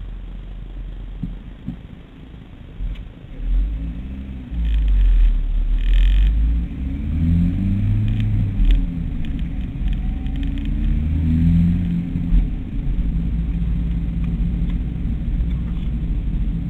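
Mitsubishi ASX engine heard from inside the cabin, pulling away and accelerating, with a deep rumble throughout. Its pitch climbs and drops again a few times as it is taken up through the gears.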